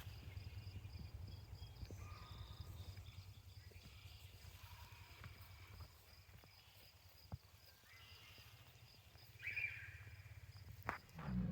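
Faint outdoor ambience: a low rumble that fades out about six seconds in, with a few faint short high chirps and a single click.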